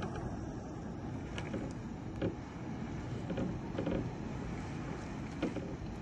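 Heavy rain heard from indoors through glass: a steady muffled rush with a few sharper taps of drops striking the window.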